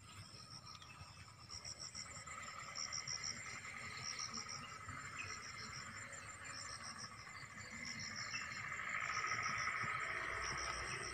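Insects calling, likely crickets: a high pulsed chirp repeats about once a second over a continuous lower buzz that swells toward the end.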